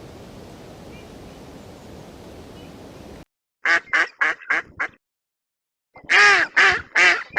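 Duck quacking: a quick run of about five short quacks, then after a brief gap a louder run of quacks. Before that comes a steady background hiss with a few faint chirps, which cuts off abruptly about three seconds in.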